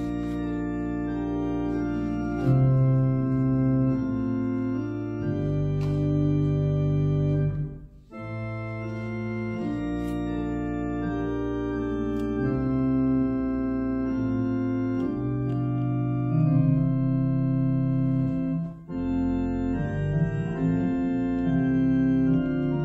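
Church organ playing sustained chords over a low bass, with short breaks between phrases about eight seconds in and again about nineteen seconds in.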